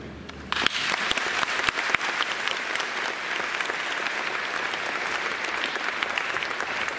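Audience applauding. The clapping starts suddenly about half a second in and goes on steadily as a dense patter of many hands.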